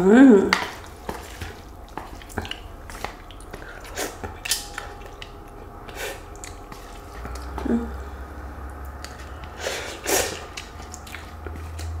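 Close-up eating sounds of someone eating noodles: chewing and mouth noises, with scattered light clicks of a utensil against a bowl. A brief voiced hum comes right at the start.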